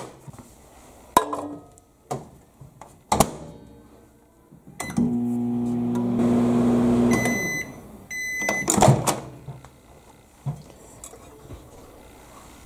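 Microwave oven melting a bowl of butter: a couple of knocks, then about five seconds in the oven runs with a steady low hum for about two seconds, stops with two high beeps, and the door is knocked open.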